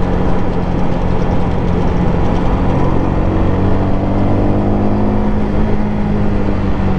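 Motorcycle engine running at a steady cruise, its pitch drifting slightly, heard from the rider's seat under a continuous rush of wind noise.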